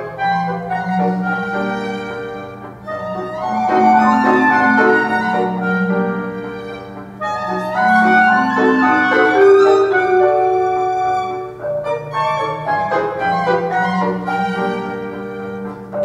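Small chamber ensemble playing silent-film accompaniment music live: violin over upright piano, swelling louder about a quarter of the way in and again near the middle.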